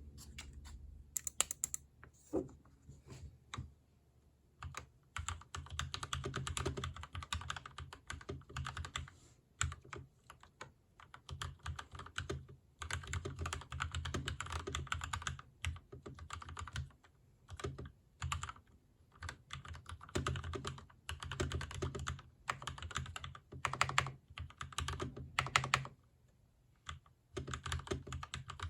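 Gamakay LK67 mechanical keyboard with Gateron Yellow linear switches, Shushi keycaps and stock stabilizers being typed on in fast runs of keystrokes, broken by brief pauses.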